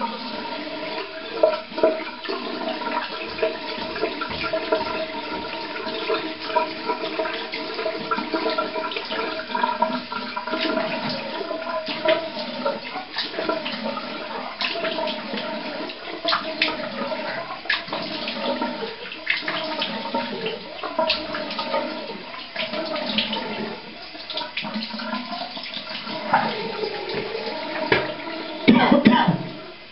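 Cold water running steadily from a tap into a sink, with irregular splashes as handfuls of water are thrown onto the face to rinse off shaving lather. A louder surge of splashing comes near the end.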